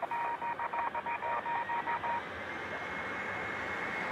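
A rapidly pulsing electronic beep tone with radio-like chatter stops about two seconds in. The distant Embraer E195's CF34 turbofans then take over, running up for takeoff: a steady high whine over a broad rushing noise.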